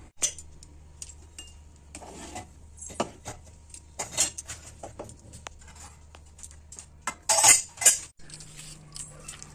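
Metal pots and kitchen utensils clinking and knocking, with a louder clatter about seven seconds in as a steel lid is set onto the pot of boiling rice.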